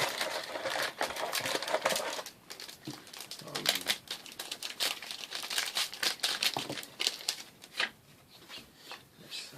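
Foil trading-card booster pack wrappers crinkling and tearing as packs are opened by hand, in dense crackling spells that ease off after about seven seconds.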